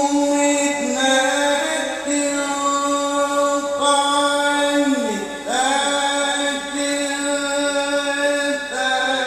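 A solo male voice reciting Arabic in the melodic Quranic tilawah style, amplified through a microphone and loudspeakers. It holds long notes with ornamented turns, and about five seconds in it dips low and climbs back up.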